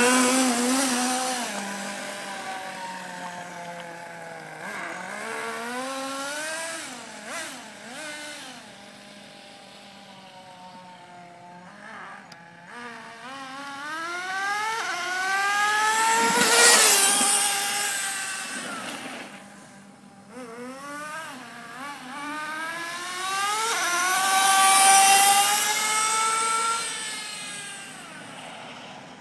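Two-stroke nitro glow engine of a Kyosho MFR radio-controlled monster truck, still being broken in on its fifth tank, revving up and down as the truck is driven. Its pitch rises and falls again and again, and it is loudest twice, a little past halfway and again near the end.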